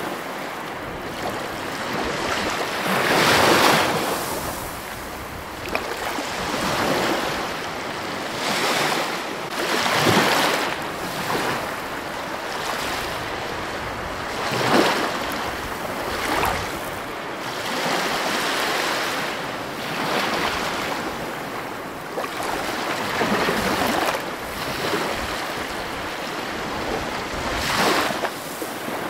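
Ocean waves breaking and washing in: a steady rush of surf that swells into louder surges every four to six seconds.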